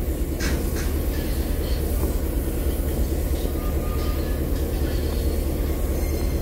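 Diesel shunting locomotive's engine running steadily beside a stationary steam locomotive, a constant low rumble.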